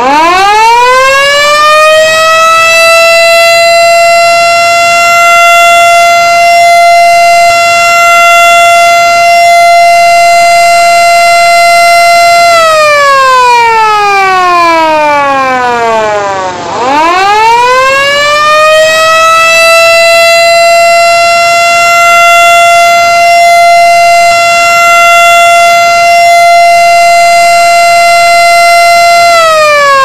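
Siren sounding the signal to break the Ramadan fast: it winds up to a steady wail and holds it for about ten seconds, then falls away. About halfway through it winds up again and holds, starting to fall just before the end.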